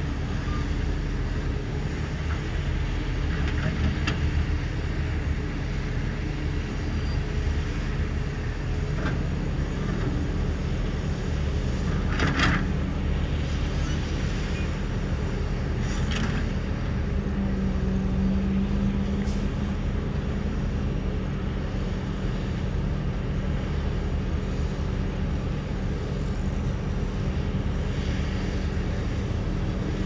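Heavy earthmoving machinery's diesel engine running steadily under load. The engine note strengthens for a few seconds past the middle, and two brief sharper sounds come about twelve and sixteen seconds in.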